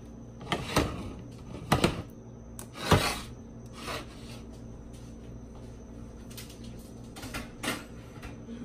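Baking dishes, a glass one and a white ceramic one, being slid and set down on a glass-top stove: a scatter of short knocks and scrapes, the loudest about three seconds in.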